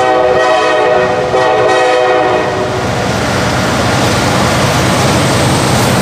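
Norfolk Southern diesel freight locomotive's horn sounding two back-to-back blasts over the first three seconds, then the steady rumble of the diesel locomotives passing close by.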